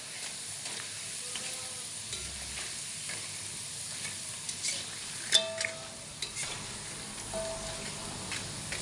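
Food sizzling in a frying pan while being stirred, with a metal utensil scraping and knocking against the pan. The loudest knock, about five seconds in, rings briefly.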